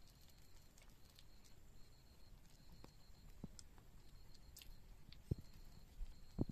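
Faint, wet squelching of a cloth bag of crushed honeycomb squeezed by hand, with honey dripping into a steel bowl. There are scattered soft ticks, and a couple of sharper clicks near the end.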